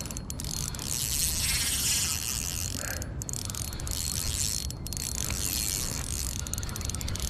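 Akuma RCX 3000 spinning reel cranked steadily while playing a hooked fish, its handle, gears and rotor turning under the load of the line.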